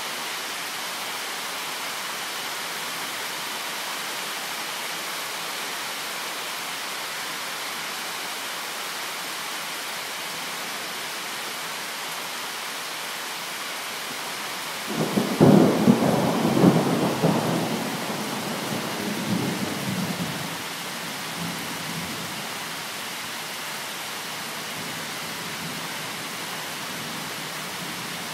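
Steady rain falling in a thunderstorm, with a clap of thunder about halfway through that rumbles on for several seconds before fading back into the rain.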